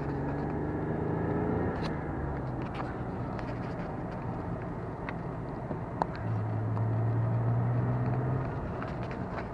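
Lotus Carlton's twin-turbo straight-six engine running at part throttle, heard inside the cabin over steady tyre and road noise on a wet track. About six seconds in there is a single sharp click, and the engine note then grows louder and steadier for a couple of seconds before easing back.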